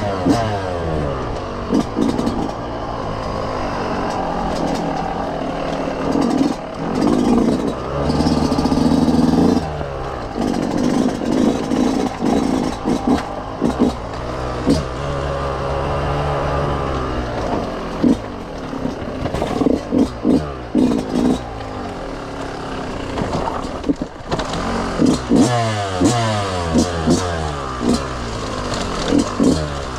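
Yamaha YZ125 two-stroke single-cylinder dirt bike being ridden off-road, its engine revving up and dropping back over and over as the rider opens and closes the throttle and shifts, with short knocks and clatter from the bike over rough ground.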